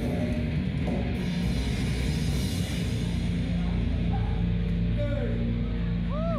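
Live death/grind band playing through the PA: distorted guitars and drums in a dense wash. About halfway in it thins into steadier held notes.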